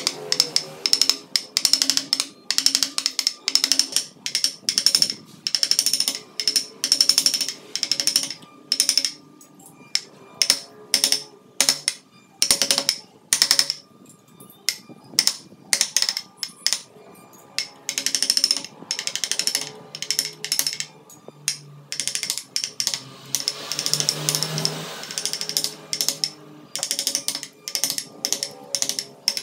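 A hand-pushed carving gouge paring chips from wood, in quick runs of short, crisp cutting strokes with brief pauses between runs. Faint background music lies underneath.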